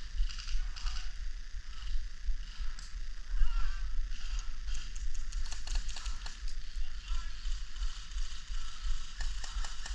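Low rumble of wind and handling on a wearable camera's microphone, with faint distant voices. Scattered sharp clicks run through it, with a quick cluster about halfway through and more near the end.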